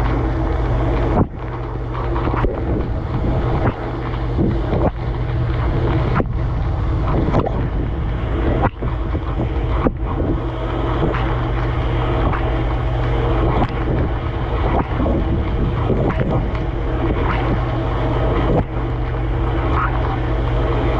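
Dishwasher running, heard from inside the tub: a steady pump-motor hum under the rush and splash of spraying water, with brief dips every second or two.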